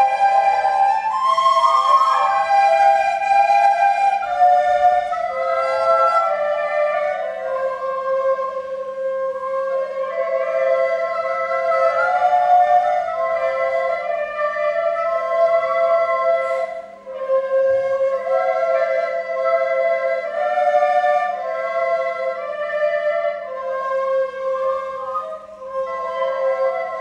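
A group of children playing descant recorders together, a simple melody of held notes, with a brief break about two-thirds of the way through.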